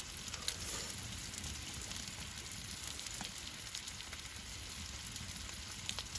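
Salted offal (shio horumon) sizzling in a skillet on a wood stove: a steady hiss with occasional small pops.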